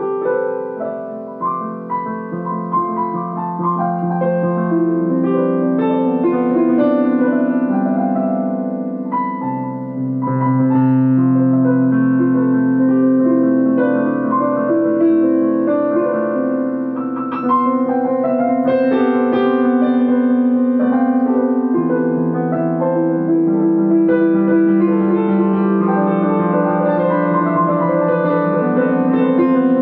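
Piano music: held chords in the low and middle range with a melody moving above them, playing without a break.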